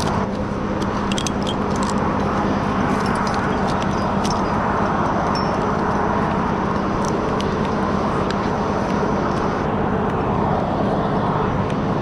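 An engine running steadily at a constant speed, with a few faint clicks over it.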